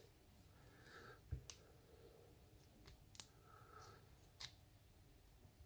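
Faint, scattered small metallic clicks from a lock cylinder being taken apart: its retaining pin removed and the plug worked out of the housing. There are about five sharp clicks, in a pair just over a second in, another pair around three seconds in, and a single click later.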